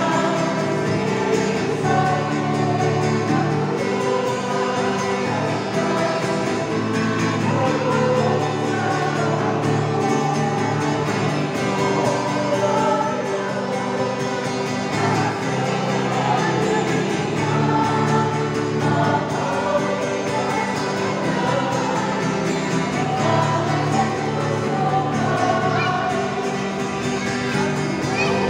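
A mixed church choir of men and women singing a praise hymn in Cebuano, continuously and at a steady level.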